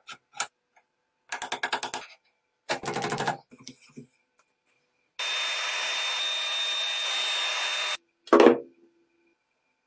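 Mechanical clicks and two short runs of rapid clicking from a restored tool's parts being worked by hand, then about three seconds of steady hissing air noise with a thin high whistle that starts and stops abruptly, and one loud metallic knock near the end.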